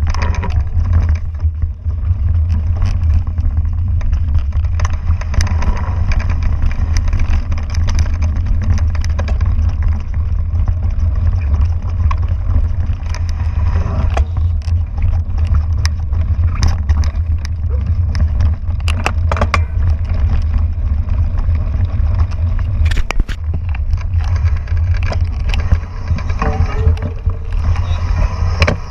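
Mountain bike ridden over a rough dirt forest trail, heard through a bike- or helmet-mounted action camera: a heavy, steady low rumble of wind and vibration on the microphone, with frequent clicks and rattles from the bike jolting over the ground.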